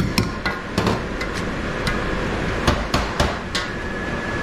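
Irregular sharp knocks and clanks of cooking utensils against cookware while seasoning, about nine in four seconds, over a steady kitchen background rush.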